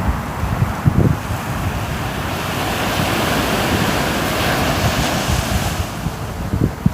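Ocean surf: a wave washes in, its hiss swelling about three seconds in and easing off near the end, with wind gusting on the microphone.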